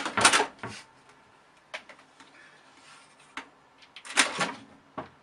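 A cat scrambling at a curtain and the side of a computer tower: a run of short bursts of rustling and scraping with knocks, the loudest a little after four seconds in.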